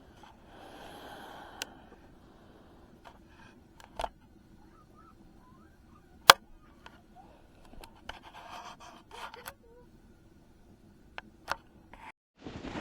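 Scattered sharp clicks and knocks, the loudest about six seconds in, over faint background noise.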